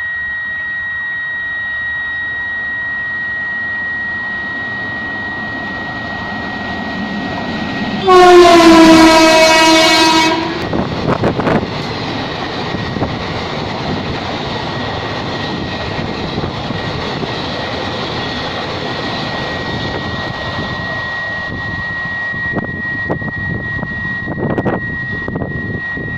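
WAP-5 electric locomotive sounding one loud horn blast of about two and a half seconds as it comes up at speed, followed by the Intercity express's coaches rushing past with a steady rumble. Near the end the wheels click over the rail joints as the last coaches pass.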